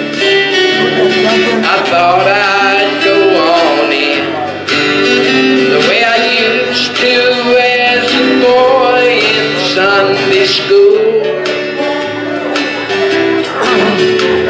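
Gospel vocal group singing together, men and women at microphones, over guitar accompaniment.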